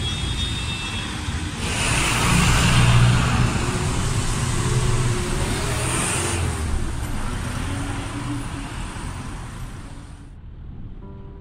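Street traffic noise of cars and trucks, a steady rumble with hiss, loudest about two to three seconds in. It fades out near the end as soft piano music begins.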